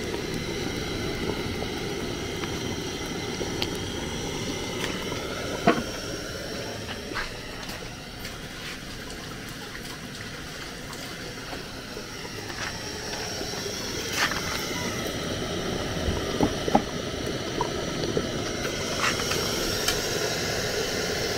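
Palm-nut soup boiling hard in a clay pot over a gas burner: a steady bubbling hiss with occasional sharp pops.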